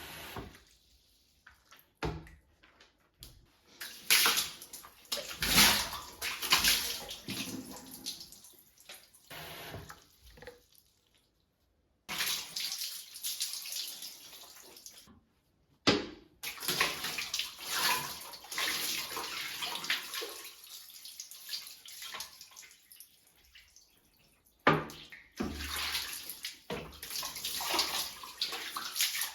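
Water running and splashing, as when rinsing a bathtub, in several spells that stop abruptly.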